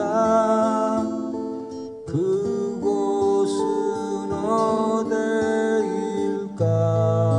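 Live Korean folk song: a man singing with his own acoustic guitar accompaniment. A deeper bass note comes in near the end and the music gets louder.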